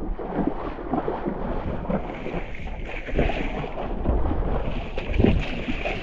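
Feet splashing through ankle-deep seawater over rock in irregular heavier steps, with wind buffeting the microphone.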